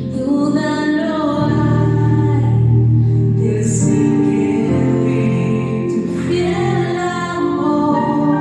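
Worship song: a singing voice over instrumental accompaniment, with long held notes and a steady bass.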